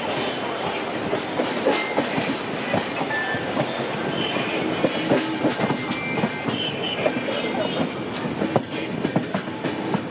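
Running noise of a moving passenger train heard from an open coach door: wheels clattering over rail joints and points, with rushing air and a few brief high wheel squeals now and then.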